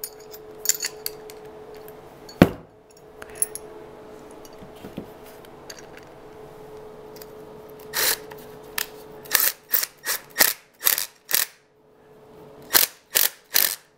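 Cordless Milwaukee M12 driver run in a series of short bursts in the last six seconds, sinking a Tapcon concrete screw through a one-hole conduit strap into a concrete wall until it is seated. Before that, handling clicks and one sharp knock about two and a half seconds in, over a steady hum.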